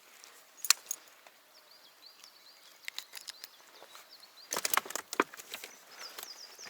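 A few sharp clicks and knocks: one single click about a second in, then a quick cluster of them a little before the five-second mark, over a quiet outdoor background.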